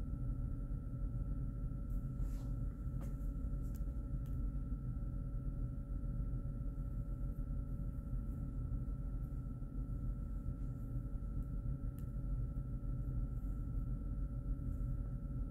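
Steady low room hum with a faint constant high tone through it, and a few faint clicks about two to four seconds in.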